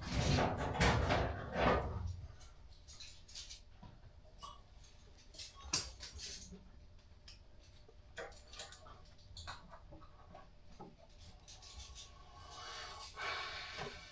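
Hand tools being worked on the car: scattered light metallic clinks, taps and scrapes of a wrench and fittings, with one sharp click about six seconds in. A louder stretch of sound fills the first two seconds.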